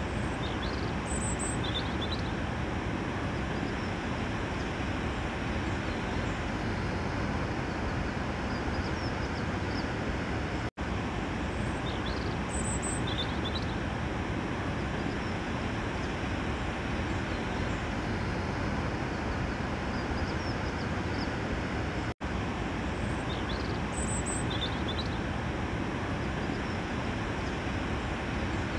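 A steady rushing ambient noise with a few faint high chirps, repeating as a loop about every 11 seconds with a brief dropout at each loop point.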